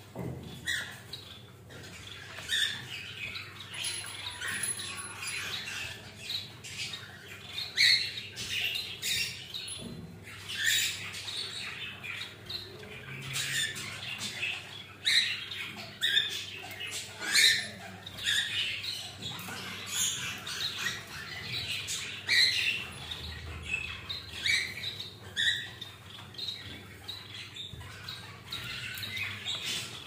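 Cockatiels pecking and nibbling at a boiled egg in a plastic dish, a steady run of small quick clicks and taps, mixed with short bird chirps and calls.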